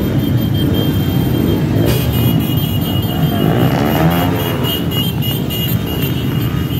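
Many motorcycles riding past in a dense group, their engines running together, with one engine's pitch rising and falling around four seconds in.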